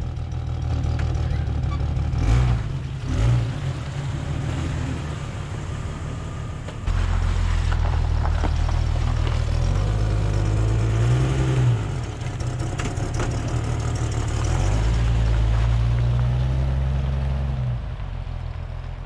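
A 1999 Jeep Cherokee's replacement 4.0-litre inline-six engine running as the Jeep pulls away and drives off. The engine picks up sharply about seven seconds in and drops away near the end as the Jeep leaves. There are two brief thumps about two and three seconds in.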